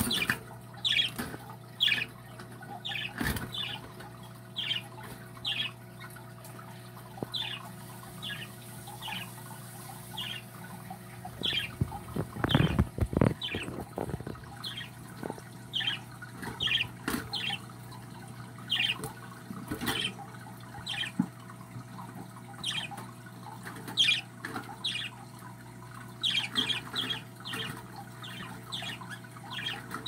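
Ten-day-old budgerigar chicks peeping: short, high, falling cheeps repeated about once or twice a second, the nestlings' begging call. A brief cluster of low knocks and rustling about halfway through, over a steady low hum.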